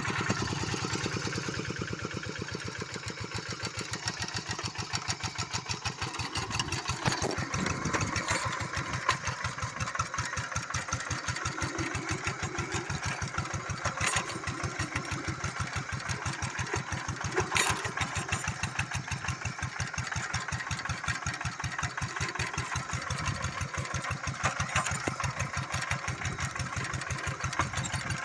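Old Kubota RD 85 single-cylinder diesel engine on a two-wheel rice-field tractor running steadily, with an even chugging beat and a few sharper knocks along the way.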